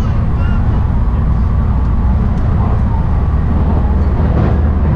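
Running noise of a JR West rapid train at speed, heard inside the carriage: a steady low rumble of wheels on rails. The rumble grows a little heavier near the end as the train runs onto a steel truss bridge.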